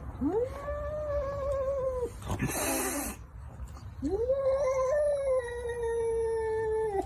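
A cat making two long, drawn-out calls, each rising quickly and then held at a steady pitch, the second longer, about three seconds. Between them comes a short, hissing burst of noise.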